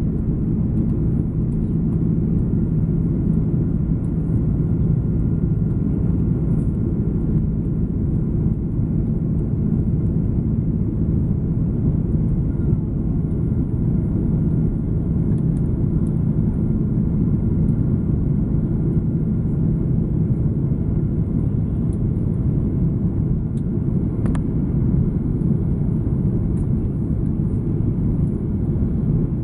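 Airbus A330-300 jet engines and airflow making a constant low rumble with a steady hum under it, unchanging throughout.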